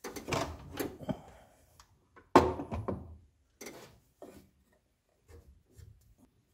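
Wooden jig parts and a workpiece being handled on a stopped table saw: a run of wooden knocks and thumps, the loudest about two and a half seconds in, followed by a few lighter taps.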